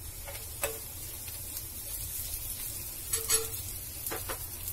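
Chopped onions sizzling in mustard oil in a cast-iron pan. A steel spoon stirs them, scraping and clicking against the pan a few times.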